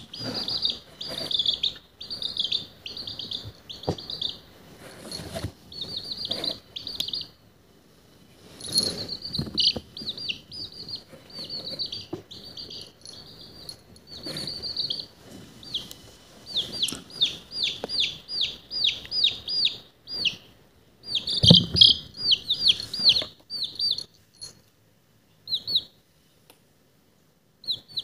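Baby chick peeping: runs of short, high, falling cheeps, two or three a second, thinning to a few isolated peeps near the end. A soft bump about three-quarters of the way through.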